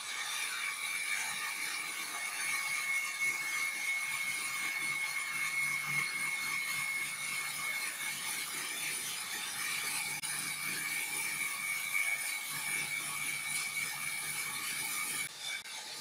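Large vertical band saw ripping a long wooden plank: a continuous hiss of the blade cutting through the wood, with a steady high whine and a low hum.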